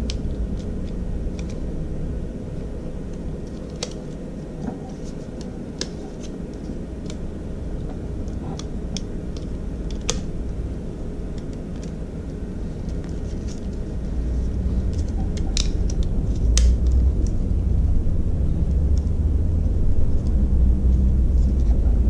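Light clicks and ticks of a Synology DS416's plastic tool-less drive tray being clipped onto a WD Red hard drive and handled, scattered irregularly. Under them runs a low steady rumble that grows louder about two-thirds of the way in.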